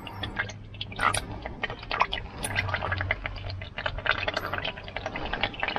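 Engine oil running out of a loosened spin-on oil filter on a Suzuki Jimny, falling as a dense, irregular patter of drips and splashes.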